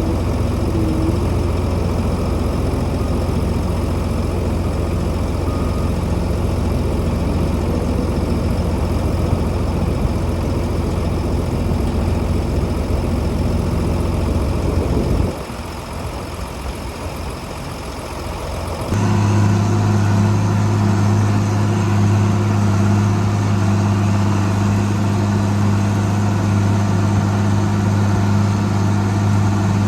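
Steady running machinery with a deep, even hum. It drops quieter about halfway through, then a different, louder steady hum with a fixed low pitch takes over about two-thirds of the way in.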